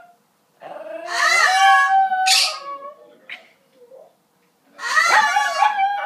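Shih Tzu howling in two long, wavering bouts, the first lasting about two seconds and the second starting near the end. A short harsh burst comes near the end of the first howl.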